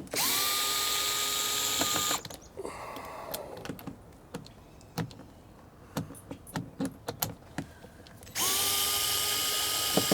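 Power drill backing out Phillips screws from a truck's interior door panel, in two runs of about two seconds each: the motor whine climbs quickly to a steady pitch and holds, then stops. Light clicks and rattles of handling come between the runs.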